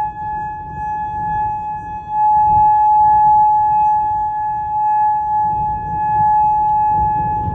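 Outdoor tornado warning siren sounding a steady alert tone at one constant pitch. Loudness dips over the first two seconds, then comes back up. Wind rumbles on the microphone underneath.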